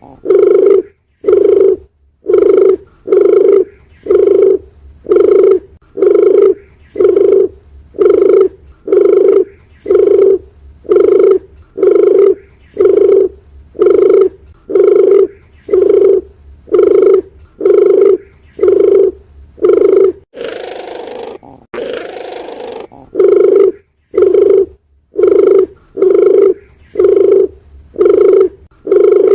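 Domestic doves of the puter and derkuku type cooing in a fast, even series of short low hoots, about three every two seconds, of the kind played as a lure call. About twenty seconds in, the hoots give way for two seconds to a harsh rushing noise, then start again.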